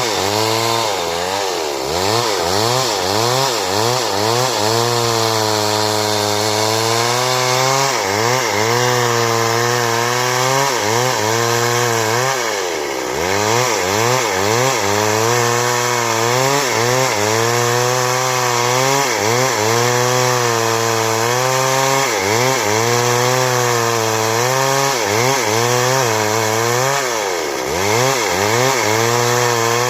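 Stihl two-stroke chainsaw running hard while cutting wood into boards. The engine pitch rises and falls about once a second as the chain bites into the cut and eases off, sagging deeper twice, near the middle and near the end.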